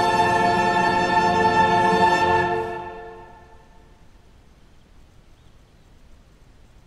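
Background music of sustained held notes, fading out about three seconds in and leaving only faint background hiss.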